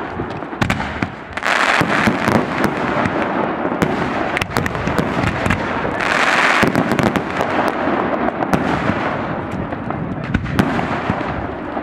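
Professional fireworks display: a rapid, continuous barrage of shell bursts and crackling bangs, with two louder rushing hisses about a second and a half in and again about six seconds in.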